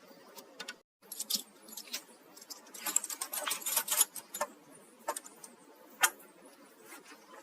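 Small hard objects clinking and rattling as they are handled: scattered clicks, a dense jingling cluster about three seconds in, and one sharp click near the six-second mark.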